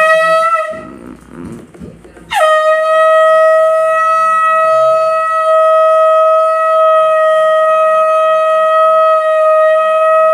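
Conch shell (shankh) blown: the tail of a short blast, then from about two seconds in one long, steady blast at a single pitch, sounded to close the Satyanarayan puja.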